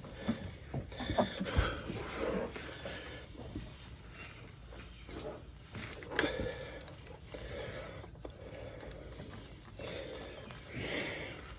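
Air hissing and sputtering in uneven bursts out of the nail hole in a still-inflated tire as a plug reamer is forced in and out of it, with a few sharp clicks and scrapes of the tool.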